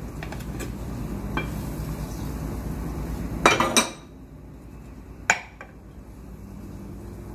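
Frying pan and ceramic plate being handled as a tortilla is turned out of the pan onto the plate: light clinks and scrapes over a low steady hum, a short louder sound about three and a half seconds in, and a single sharp clack about five seconds in as the plate is set down on the stone countertop.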